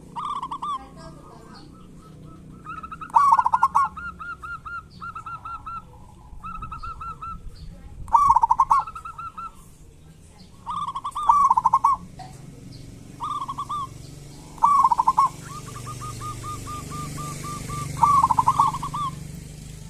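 Zebra doves (perkutut) calling over and over: short, pitched phrases every two to three seconds, some of them quick runs of evenly repeated notes, the kerot and bekur calls of the local perkutut. A low steady hum lies underneath.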